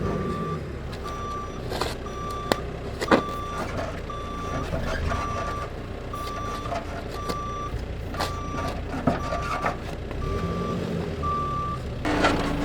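Vehicle reversing alarm beeping steadily, one single-pitch beep about every two-thirds of a second, with a few sharp clicks and knocks in between. A louder, rough noise starts near the end.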